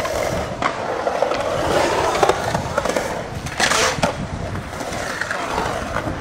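Skateboard wheels rolling and carving on the concrete of a skatepark bowl, a steady rumbling hum. About three and a half seconds in comes a short, loud scrape as the board grinds on the bowl's coping.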